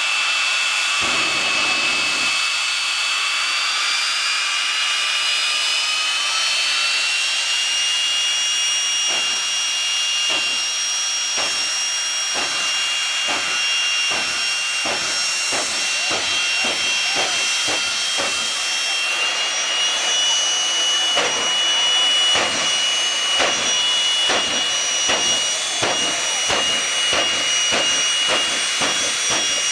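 Cannonball Express jet car's turbine engine running at the start line with a high, steady whine. The whine rises in pitch over the first several seconds, then holds. From about nine seconds in, sharp pops repeat, coming faster toward the end, at about two a second.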